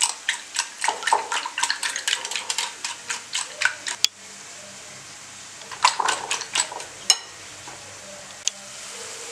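Coil whisk beating eggs in a ceramic bowl, the wire clicking against the bowl about four times a second. The whisking stops about four seconds in, then comes back briefly around six seconds and ends with a sharp tap.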